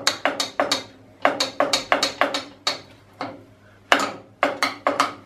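Light hammer taps on a metal part, knocking it down into place on a round-column mill drill's head. The taps come in quick runs of several a second, with short pauses between runs.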